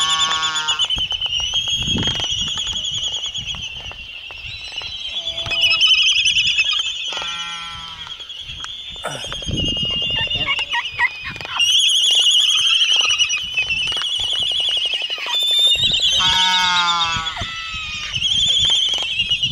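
Laysan albatrosses' courtship dance: several drawn-out, pitched whinnying and moaning calls, the loudest around sixteen seconds in, with sharp clacks of bills between them. A constant high trilling din of the colony carries on underneath.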